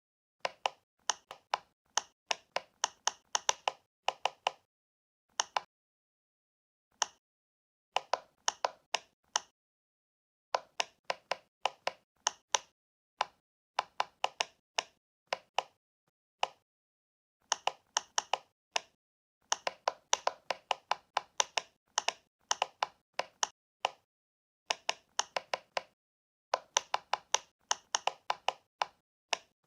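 Silicone pop-it fidget toy bubbles being pressed and popping: sharp little pops in quick runs of several a second, with short pauses between runs.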